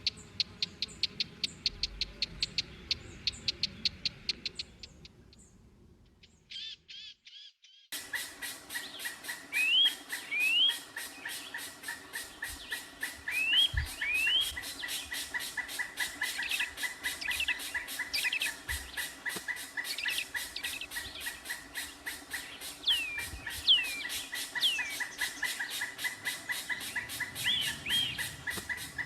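Young white-eye (pleci) chirping rapidly in fast, evenly repeated notes, typical of a chick begging for food; the calling stops for a few seconds about five seconds in, then resumes denser, with quick rising chirps over a steady high whine.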